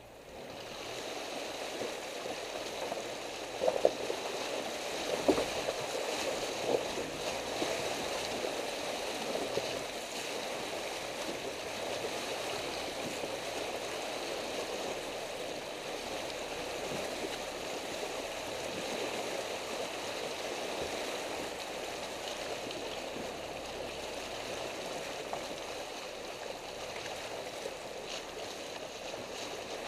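Water splashing and rushing around the front tyre of a Mitsubishi Pinin as it wades through a shallow, rocky river, with a few sharp knocks about four and five seconds in.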